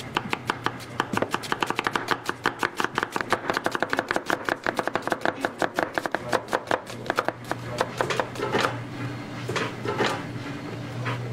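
Chef's knife rapidly slicing onion halves on a plastic cutting board, several cuts a second, each a sharp knock of the blade on the board. The chopping stops about seven seconds in, followed by a few separate knocks.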